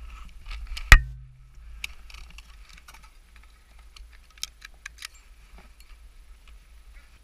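A single loud rifle shot about a second in, followed by scattered light clicks and rattles of carried gear.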